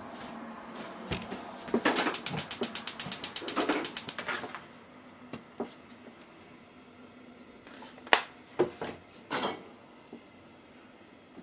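Gas stove burner's piezo igniter clicking rapidly, about nine clicks a second for a little over two seconds, as the burner is lit. A few separate sharp knocks follow later.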